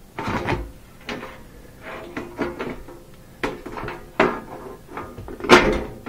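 Sheet-metal side panel of a Miele dishwasher knocking and rattling against the machine's frame while it is lifted and worked back into place, with irregular clanks, the loudest about five and a half seconds in.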